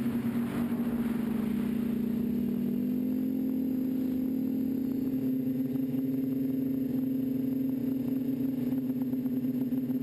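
TBS Discovery quadcopter's electric motors and propellers droning steadily, heard from the camera mounted on the craft itself. The pitch rises a little about three seconds in.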